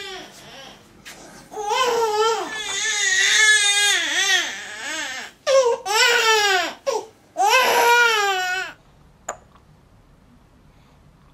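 Newborn baby crying in a run of long cries, the pitch wavering and falling away at the end of each, with short gasps in between; the crying stops suddenly about three-quarters of the way through.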